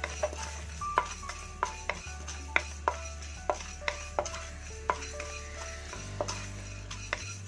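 Wooden spatula stirring and scraping fenugreek seeds around a dry pan, with irregular light taps against the pan two or three times a second as the seeds are roasted.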